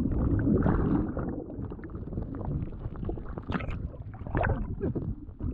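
Muffled churning of seawater and air bubbles heard underwater, with a few sharper bubble crackles about three and a half and four and a half seconds in.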